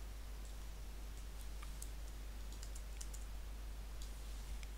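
Faint computer keyboard keystrokes and clicks, scattered and irregular, over a low steady hum.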